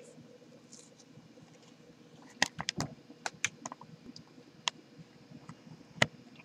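Handling of a webcam-equipped computer as it is grabbed and tilted: a scattered run of about ten sharp clicks and knocks, most of them bunched together about halfway through, with the loudest knock near the end.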